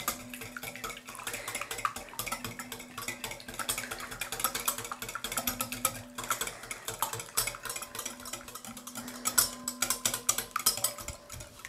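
Wire balloon whisk beating raw eggs in a bowl: a rapid, continuous clicking of the wires against the bowl.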